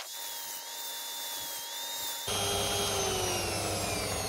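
Dremel rotary tool with a cutoff disc trimming a steel rod as it spins in a drill press: a high whine that wavers in pitch. About two seconds in the sound suddenly grows louder and the whine falls steadily lower.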